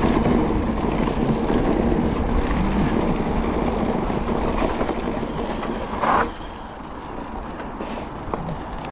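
Mountain bike rolling fast down a dirt trail: tyre noise on dirt and gravel with the bike's chain and frame rattling and wind buffeting the microphone, dropping much quieter about six seconds in as the bike slows.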